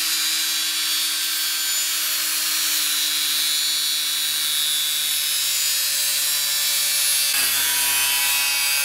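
Angle grinder spinning a homemade cardboard cutting disc pressed against an aluminium tube: a steady motor whine under a high rubbing hiss as the disc grinds the metal to dust without cutting through it. About seven seconds in, the motor's pitch drops a step.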